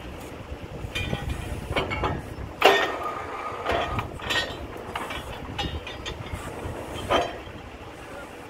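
Truck-mounted borewell drilling rig running with a steady low rumble, with irregular metallic clanks over it; the loudest clank comes a little under three seconds in and rings briefly, and another hard clank comes about seven seconds in.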